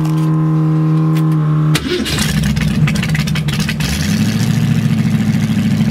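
Hot-rodded V8 in a 1974 Ford Pinto drag car being started: a steady electric whine for about two seconds, then the engine catches and runs loudly through open zoomie headers.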